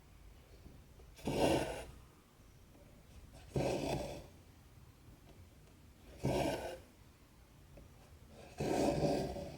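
Cotton embroidery thread drawn through 14-count cross-stitch canvas four times, each pull a short rasp of about half a second, about every two and a half seconds.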